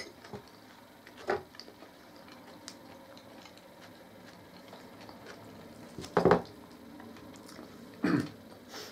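Eating at the table: a fork clinking and scraping on a plate, with soft chewing. A sharp clink comes right at the start, and a couple of short, louder sounds come about six and eight seconds in.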